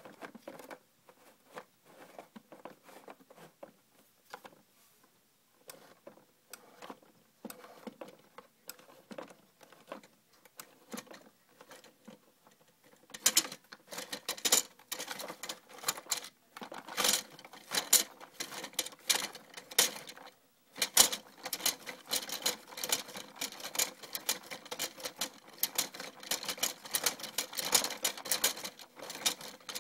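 Plastic mechanism of a Hot Wheels Car Wash playset rattling and clicking as the clear wash drum spins around the car. Scattered clicks at first, then from about 13 s in a fast, continuous clatter with a brief stop about 20 s in.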